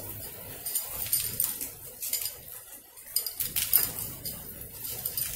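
A clear plastic bag of small nuts and bolts being handled: crinkling plastic with light metal clinks of the hardware inside.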